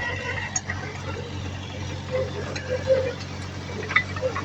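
Diesel engine of heavy earthmoving equipment running steadily, with scattered clicks and clanks over it.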